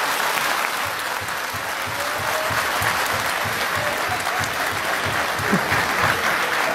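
A large seated audience applauding steadily, with a dense patter of many hands clapping at once.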